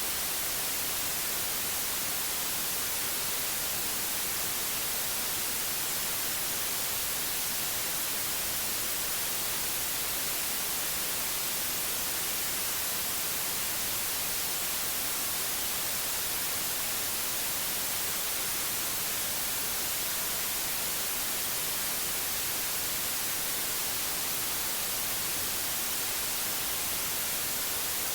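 Steady white noise: an even, unchanging hiss that is brightest in the treble.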